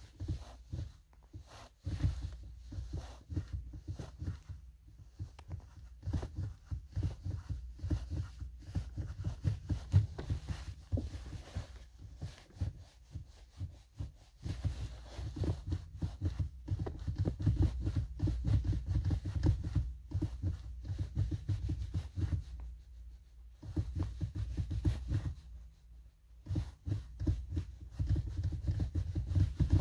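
Car pedals pumped fast by a booted foot and a socked foot: a quick, uneven run of dull thumps and knocks, broken by a few short pauses.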